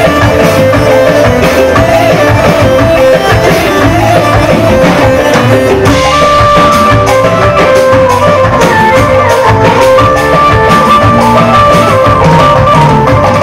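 Loud dance music with a steady drum beat and a lead melody; the melody moves up to a higher held line about halfway through.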